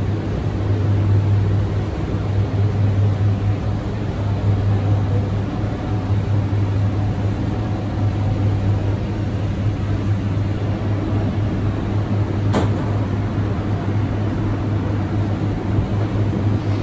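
Steady low hum of running commercial kitchen equipment, with one sharp click about twelve seconds in.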